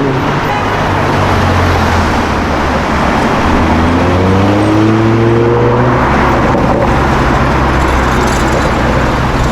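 A car engine running with a deep, steady exhaust drone, then revving up with a rising pitch from about four to six seconds in before dropping back.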